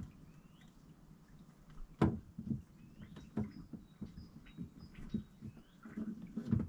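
Scattered knocks and clicks of hands handling parts inside an open fridge, the loudest about two seconds in and several more near the end. Small birds chirp now and then in the background.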